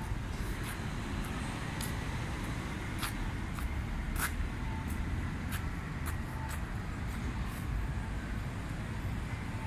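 Steady low rumble of city street traffic, with light clicks about every two-thirds of a second from footsteps on paving.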